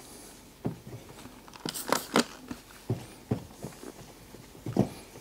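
Microfiber towel rubbed over a plastic headlight lens in short, irregular strokes, wiping polishing compound off with glass cleaner; a quick cluster of strokes about two seconds in and another near the end.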